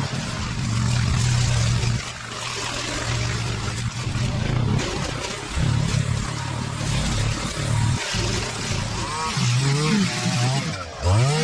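Small petrol engines of a push mower and a line trimmer running as they cut tall overgrown grass and weeds. The engine sound changes abruptly several times, and the pitch swings up and down near the end.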